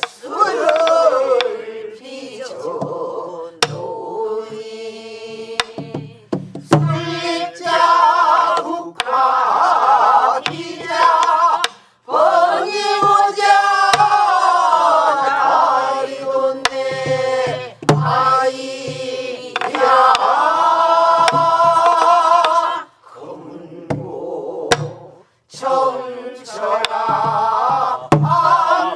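A group of men and women singing a Namdo folk song together in the long, bending vocal lines of the style. Sharp strokes on buk barrel drums mark the rhythm every second or few seconds, and the singing breaks off briefly a few times.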